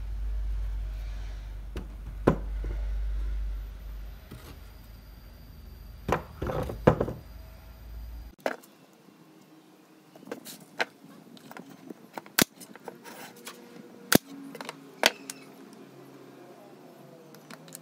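Wooden lantern frame and thin wooden slats handled on a wooden workbench: scattered knocks and clacks, with a few sharp clicks in the second half. A steady low hum runs under the first half and cuts off about eight seconds in.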